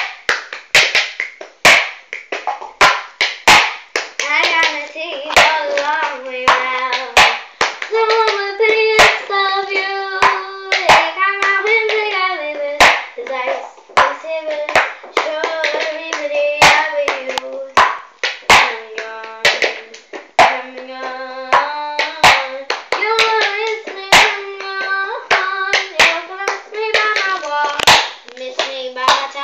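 A girl doing the cup routine: a steady rhythm of hand claps and a plastic cup tapped and set down on a wooden floor, with her singing along from about four seconds in.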